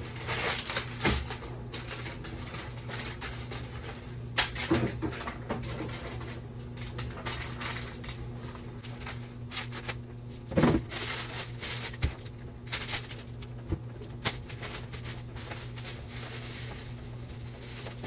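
Rustling of a plastic zip-top bag, with scattered clicks and light knocks as items are handled and moved around in an open refrigerator, over a steady low hum.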